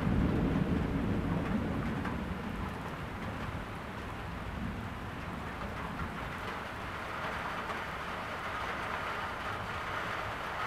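Steady rain falling, with a low rumble of thunder in the first couple of seconds that fades away.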